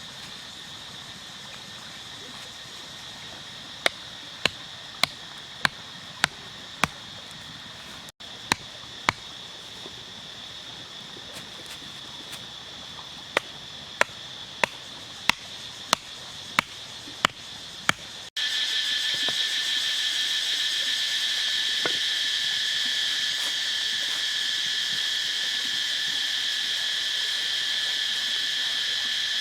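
A steady, high-pitched chorus of insects such as crickets or cicadas, with runs of sharp, evenly spaced knocks about one every half-second in the first two-thirds. After a cut near the end of the second third, the insect chorus is much louder and the knocks stop.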